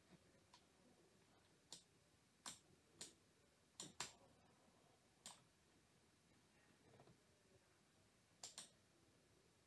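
Faint, sharp clicks of a computer mouse, about eight in all, some in quick pairs, over near silence.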